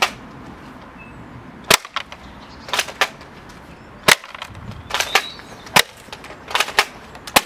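Spring-powered single-shot AK-47 airsoft rifle being cocked and fired again and again: a string of sharp snaps and clacks, the loudest coming about every one and a half to two seconds.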